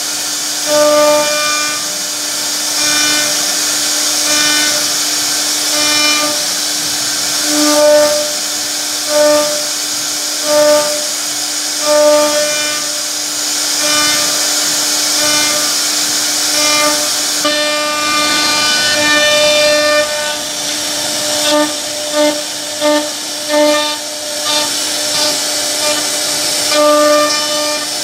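CNC router spindle running with a steady whine over a hiss of cutting noise, swelling about every second and a half as the bit cuts into the wood. Past the middle the swells come shorter and irregular.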